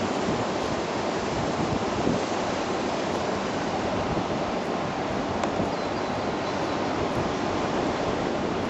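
Steady rushing noise of wind blowing on the microphone.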